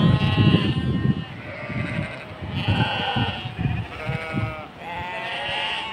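A large flock of Hissar sheep bleating, many calls overlapping and following one another almost without pause. A low rumble sits under the first second.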